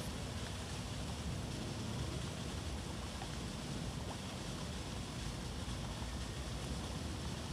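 Steady low rumble with an even hiss over it, from a moored catamaran ferry's machinery running at the pier.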